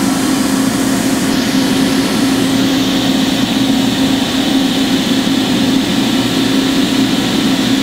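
1995 Toyoda CNC horizontal machining center running with its spindle turning: a steady machine hum, one held tone over an even hiss.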